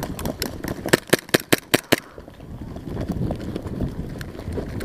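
Airsoft guns firing: scattered lighter cracks, then a quick run of about six sharp cracks, roughly five a second, from about one to two seconds in. After that only quieter rustling is left.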